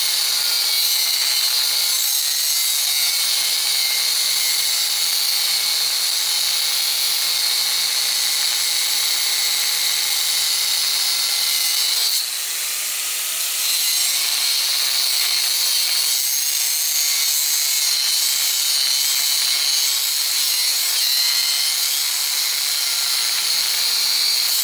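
Angle grinder grinding a forged steel bar round: a loud, steady high-pitched grinding hiss over the motor's steady whine, easing briefly about halfway through.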